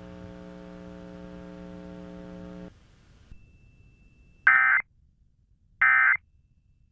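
A steady low electrical buzz that cuts off near three seconds in, then two short bursts of Emergency Alert System data tones about a second and a half apart: the End of Message code that closes an EAS test.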